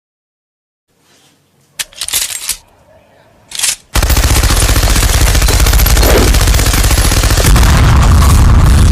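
A few short knocks and hissing bursts, then about four seconds in a loud, rapid rattling starts, like machine-gun fire, and runs on for about six seconds.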